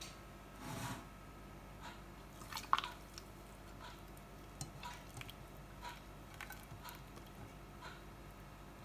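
Warm melted ghee poured from a pot through a fine mesh strainer into a jar: faint soft dripping and squishing with scattered small clicks, and one sharper click about three seconds in.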